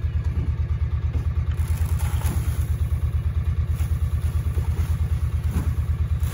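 An engine idling: a steady low thudding pulse, about eight beats a second.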